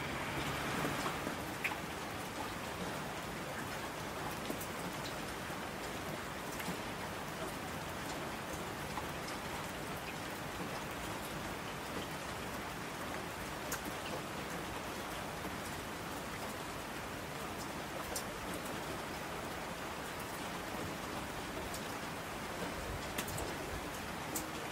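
Steady rain falling, with scattered sharp drops ticking through it.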